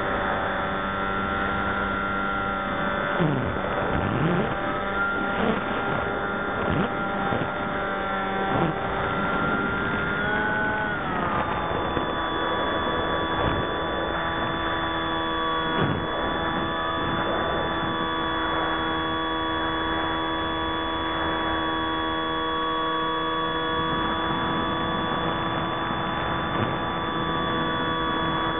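Electric motor and propeller whine of an FPV model aircraft, picked up by its onboard camera: several steady tones over a rushing haze, with a few brief dips in pitch early on and a shift to a new, lower set of tones about eleven seconds in.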